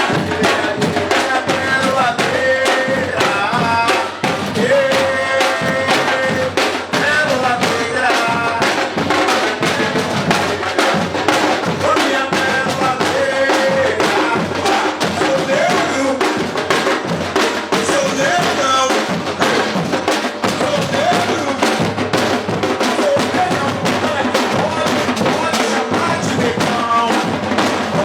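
Bloco afro drum ensemble playing a steady, dense rhythm of many drums together, with voices over the drums.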